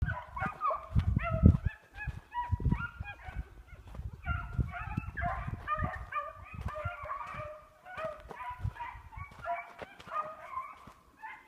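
A pack of beagles baying on a running hare, many voices overlapping in short rapid calls. Bursts of low rumble on the microphone come and go beneath them, loudest in the first couple of seconds.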